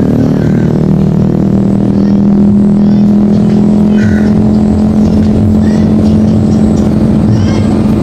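A motor vehicle's engine running steadily close by, a constant low drone. A few faint, short, high chirps from small birds come through it now and then.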